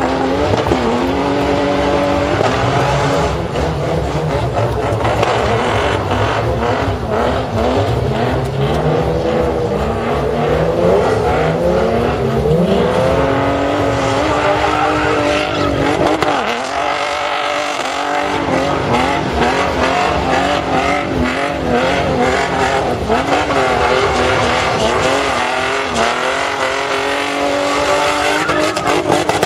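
Toyota Land Cruiser engine revving up and down again and again while the SUV spins donuts, with its tyres squealing on the tarmac. The revs fall off briefly a little past halfway, then climb again.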